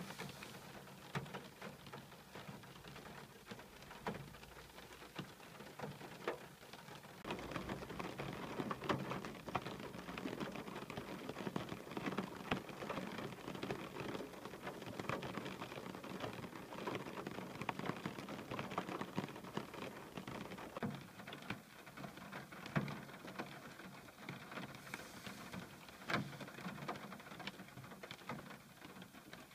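Rain pattering on glass, many small drop ticks over a steady hiss. It gets heavier about a quarter of the way in and eases off again in the last third.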